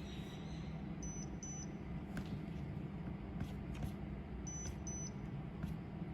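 Buzzer of a homemade smoke alarm beeping: two short high beeps about a second in and two more about four and a half seconds in, the alarm set off by smoke at its MQ2 smoke sensor. A steady low hum runs underneath.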